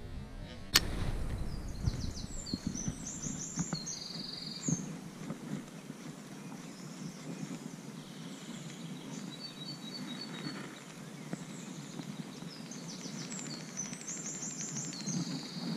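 A songbird sings two similar trilling phrases about ten seconds apart, with a few short high notes between them, over the steady rush of a shallow river. A single sharp click sounds about a second in.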